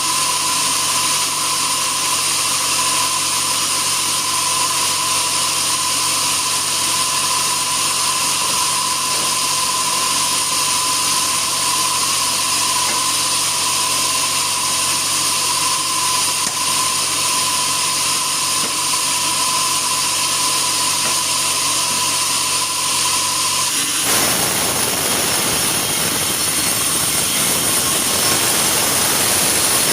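Sawmill machinery running steadily with a high, constant whine over a low hum. About three-quarters of the way through, the sound switches abruptly to a denser, harsher noise at the same loudness.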